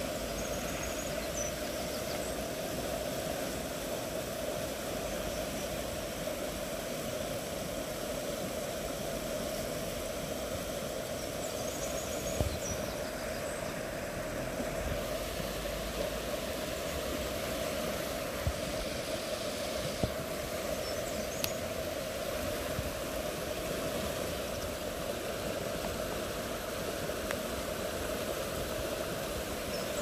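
Steady rushing of a fast-flowing river, with a few brief soft knocks here and there.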